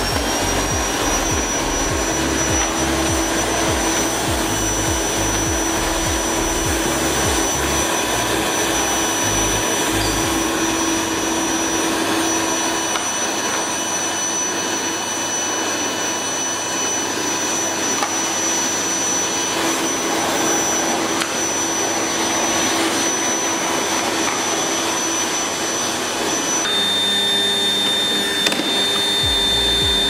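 Black+Decker VM1680 1600 W bagless cyclonic canister vacuum cleaner running, a steady high motor whine over the rush of suction air. About 27 seconds in the whine drops to a lower pitch.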